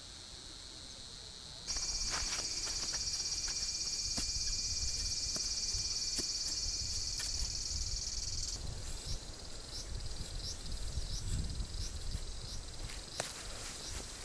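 Insects chirring outdoors: a thin steady high trill, joined about two seconds in by a loud, rapid, high buzzing chorus. The chorus stops abruptly about halfway through, leaving scattered light clicks and knocks.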